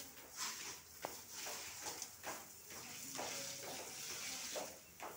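Water from a hose spraying onto a pleated mesh sliding door: a steady hiss with many short splashy bursts, fuller for a couple of seconds past the middle.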